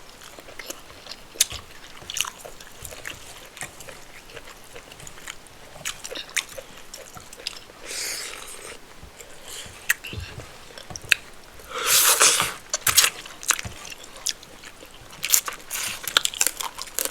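Close-miked chewing and wet mouth sounds of a person eating rice and spinach stew with chicken, with many small scattered clicks. A louder, longer rushing noise comes about twelve seconds in, and a softer one about eight seconds in.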